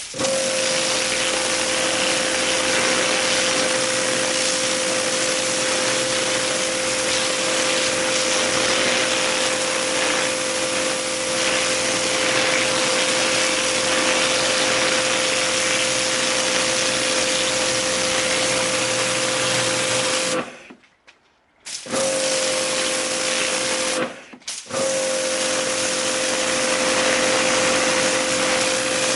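Karcher K7 Full Control pressure washer running at full pressure on its Hard setting: a steady motor and pump hum over the hiss of the jet blasting weeds out of paving joints. The trigger is released twice near the end. Each time the motor and spray stop, first for about a second, then for about half a second, before starting again.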